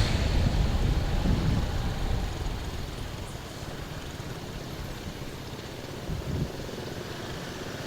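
Vehicle rumble in street traffic, loud for the first two seconds or so and fading away, then a steady, quieter low traffic hum.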